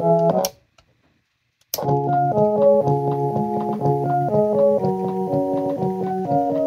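Electronic band-organ style carousel music from a 1993 Mr. Christmas Animated Holiday Carousel toy. It stops with a click about half a second in, and after a little over a second of silence another click comes and a different tune starts, with a steady oom-pah bass under the melody.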